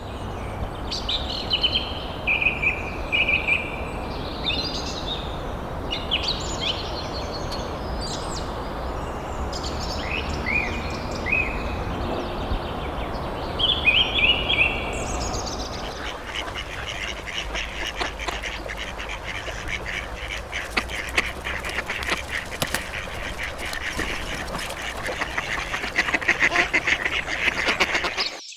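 Birds calling: short, repeated calls over a steady background hiss, giving way about halfway through to a dense, rapid chatter of many calls.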